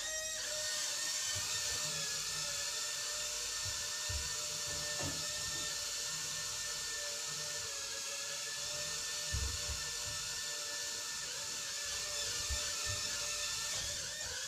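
Small FX 32 toy quadcopter drone in flight, its tiny motors and propellers whining steadily with a slightly wavering pitch, with a few faint low knocks. The whine cuts off suddenly at the very end.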